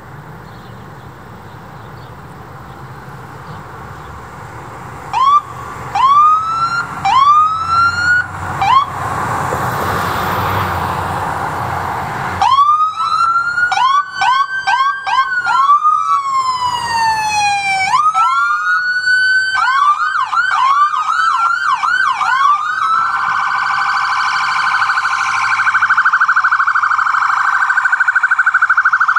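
Electronic siren of a responding emergency vehicle: a few short rising chirps, then a long wail that climbs and falls, then quick yelp cycles, and for the last several seconds a very rapid warble.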